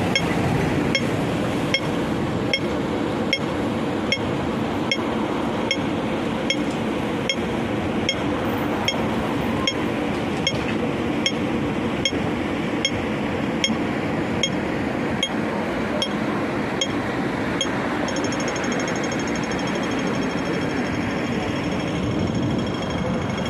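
Audible pedestrian crossing signal ticking slowly and evenly, the wait signal, over steady street and traffic noise. Near the end it switches to rapid ticking, the signal that the green man is lit for crossing.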